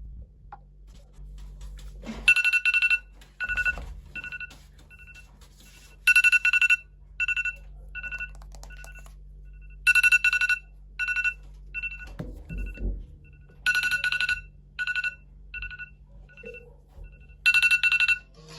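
Smartphone ringtone: an electronic beep pattern on two pitches that repeats about every four seconds, each round a loud burst followed by shorter beeps that fade away.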